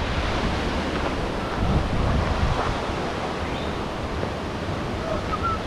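Steady rush of river water pouring over a low weir, with wind rumbling on the microphone.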